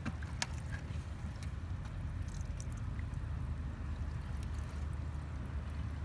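Steady low rumble, with a few faint wet clicks and squelches of hands working soft mud, mostly in the first second.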